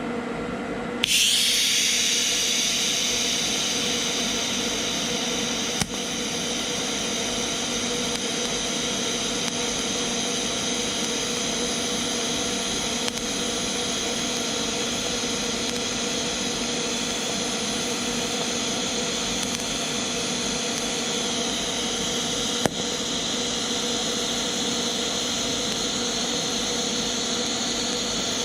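TIG welding arc struck about a second in and held as a steady hiss with a constant tone, filling an old nut with weld to fuse it onto a snapped bolt stub.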